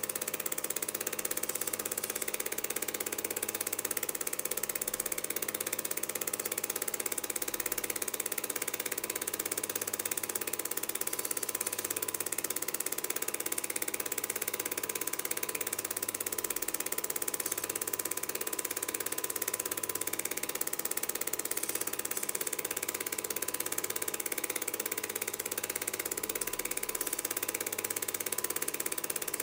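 Film projector running: a steady mechanical whirr of the mechanism with a constant hum and hiss, unchanging throughout.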